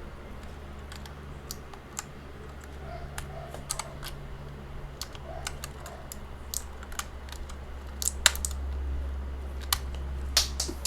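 Plastic keycaps being pressed back onto a computer keyboard's switches: irregular sharp clicks and snaps, with a few louder snaps near the end, over a steady low hum.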